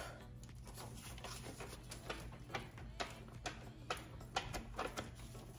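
Soft footsteps of platform-soled slip-on sneakers on a plastic carpet-protector runner: faint light taps and clicks, a few a second.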